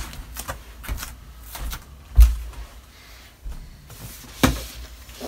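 Handling noise as a large plastic-wrapped parcel is moved about and set down on the floor: scattered knocks, bumps and rustles, with a low thump about two seconds in and a sharp knock about four and a half seconds in.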